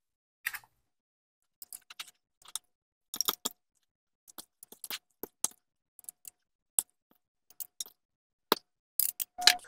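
Metal forks clinking and scraping against a ceramic bowl while shredding cooked pork, in a string of irregular light clicks that grow more frequent near the end.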